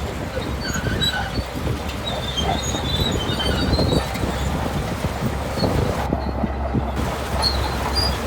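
Shantui crawler bulldozer's diesel engine running under load with a steady low rumble, its steel tracks clanking and giving high squeals as it pushes sand.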